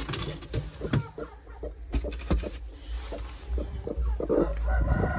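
Broody Aseel hen clucking on her nest of hatching eggs as she is disturbed, with scattered knocks and rustling of handling.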